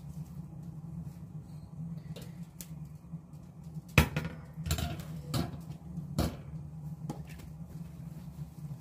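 A metal wire cooling rack set down on a kitchen countertop: one sharp clatter about four seconds in, then a few lighter knocks as the rack settles and a corn cob is laid on it. A low steady hum runs underneath.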